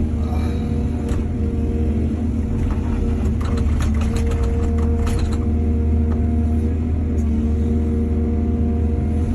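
Excavator's diesel engine running steadily, with a run of knocks and clatter for a few seconds in the middle.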